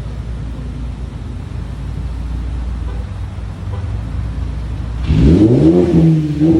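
Ford Focus ST engine through a Cobb cat-back exhaust idling with a steady low rumble, then revved hard about five seconds in, the pitch climbing quickly and holding high near the end.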